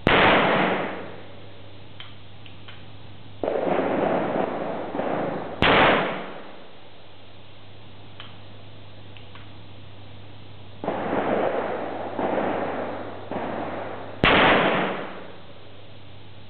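Three shots from a black-powder percussion revolver, each a sharp crack that fades over about a second, a few seconds apart. Between the shots come stretches of rushing noise and a few faint clicks.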